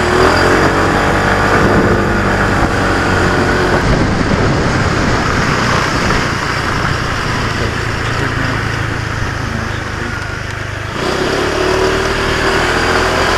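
Small motorcycle engine running on the move, its pitch rising and falling with the throttle, over a steady rush of wind and road noise.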